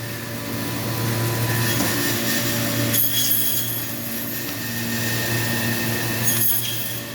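Butcher's meat bandsaw running with a steady hum while cutting carcass meat, with brief sharper scraping sounds about three seconds in and again near the end.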